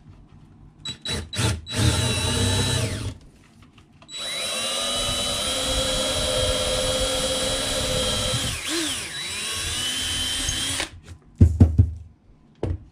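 Cordless DeWalt drill boring a hole into a walnut slab: a few quick trigger blips and a short run, then a longer run of about seven seconds with a steady motor whine that rises as it spins up and dips briefly once before it stops. A couple of loud knocks come near the end.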